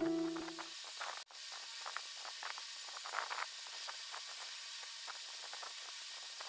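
Pencil shading on paper: faint, irregular scratching strokes over a steady hiss. A last guitar note of music dies away at the start.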